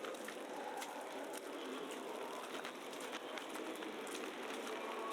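Street ambience on a snowy city night: a steady wash of noise with many irregular light ticks and crackles.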